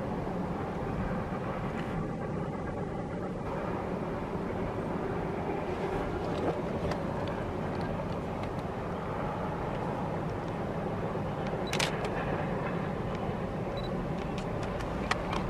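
Distant steam passenger train running along the line, heard as a steady low rumbling rush, with a few sharp clicks about halfway through, near the end and just before the end.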